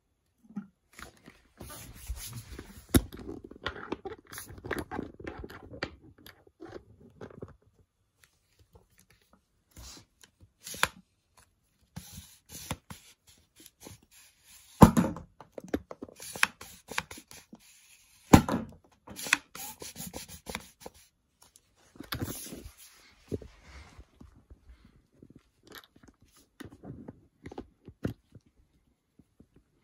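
Plastic air-pump toy ball gun being handled, pumped and loaded: a long run of plastic clicks, clacks and scrapes, with a few sharp pops, the loudest about halfway through.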